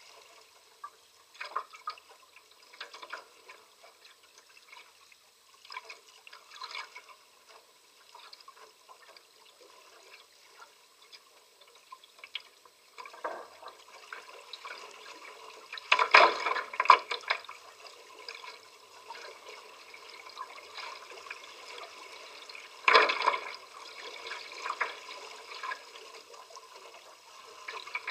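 Water lapping and splashing against the hull of a small sailing trimaran under way. The small, irregular splashes are broken by a few louder slaps past the middle.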